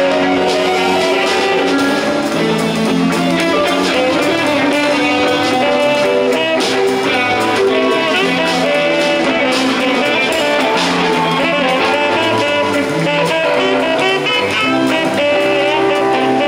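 A live band playing a song at full level, with guitar to the fore.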